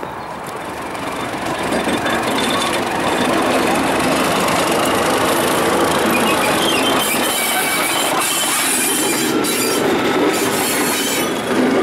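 Class 31 diesel locomotive running slowly up alongside the platform, its engine getting louder over the first few seconds as it closes in and then holding steady. From about halfway in, a thin high squeal from the wheels on the rails rides over it.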